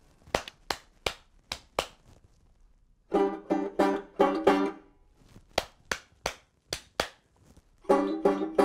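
Hand claps, about three a second, taking turns with short runs of strummed banjo chords: claps first, banjo strums about three seconds in, claps again, then banjo again near the end.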